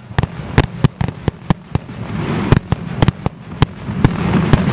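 Aerial fireworks going off in rapid succession: sharp bangs several times a second over a continuous rumble that builds toward the end.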